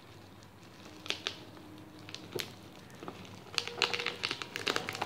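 Plastic bubble wrap crinkling and crackling as it is picked at and pulled open with a small metal tool. A scatter of sharp clicks grows busier near the end.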